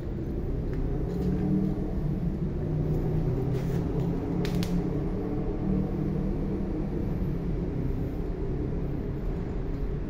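Steady low mechanical rumble with a droning hum, with two short clicks a little before the middle.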